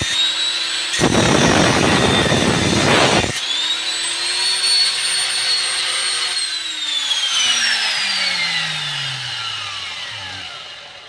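Handheld grinder cutting into metal with a rough grinding noise, broken by a short pause about a second in. After about three seconds it runs free with a steady high whine, then is switched off and winds down, its pitch falling away.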